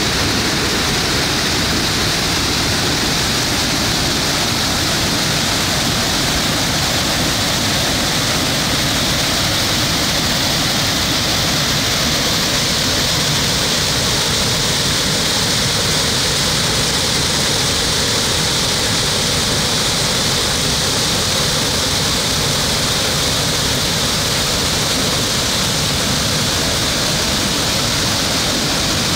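Small waterfall pouring over rock into a pool, a loud steady rush of falling water.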